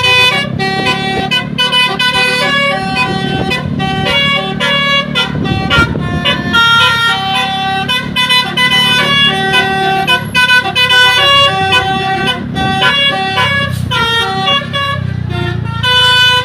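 Bus "telolet" multi-tone air horns playing a quick, continuous run of stepped notes, one tune after another, over the low running of the bus engines.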